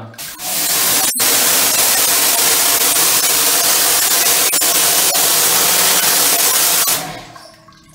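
Pressure-washer jet hissing against the tiles and grout inside a shower stall, blasting grime out of the grout lines. It starts just after the beginning, breaks off for an instant about a second in, and stops about seven seconds in.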